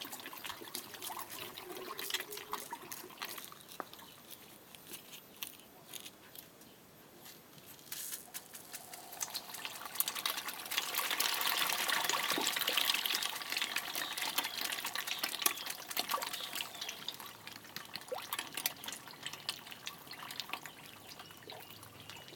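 Water trickling and dripping in a catfish drum pond, with a louder stretch of splashing starting about ten seconds in and lasting several seconds.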